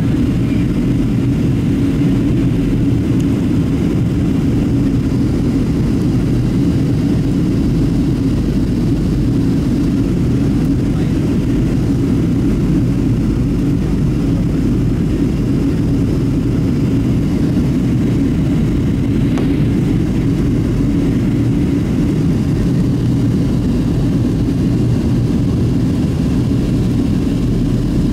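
Boeing 737-700 cabin noise during descent: the CFM56-7B turbofans and rushing airflow make a steady low rumble with an even hum.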